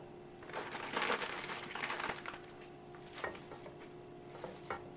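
Fresh spinach leaves rustling and crackling as handfuls are dropped and pressed into a steel frying pan, followed by a few light clicks, over a faint steady hum.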